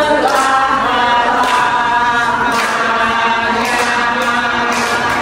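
A group of women singing together in unison, holding long notes.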